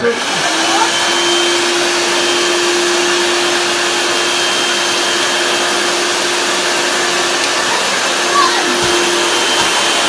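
1977 Hoover Celebrity Deluxe cylinder vacuum cleaner starting up suddenly, then running with a steady hum and air rush while its floor tool is pushed over carpet.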